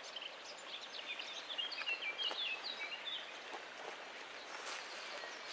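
Several small songbirds singing and chirping in quick, high notes, busiest in the first half, over a steady background rush.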